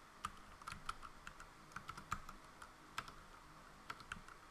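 Faint, irregular keystrokes on a computer keyboard as a short command is typed, several clicks a second with uneven gaps.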